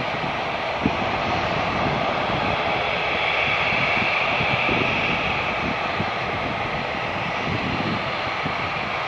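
Airbus A330-300 airliner's twin turbofan jet engines at landing power during the flare and touchdown: a steady jet rush, with a whine that grows louder about three to five seconds in as the aircraft passes closest.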